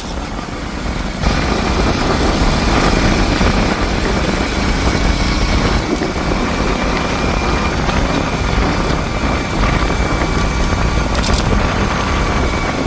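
Motorcycle running along the road, its engine under a heavy, steady rumble of wind on the microphone, getting louder about a second in.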